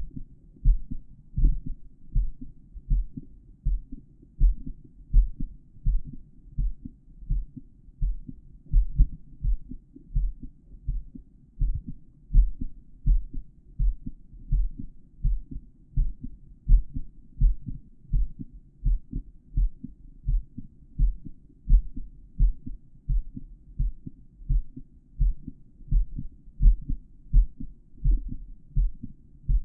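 A man's heartbeat heard through a stethoscope, picked up by a microphone inside the earpieces: steady, regular dull thumps.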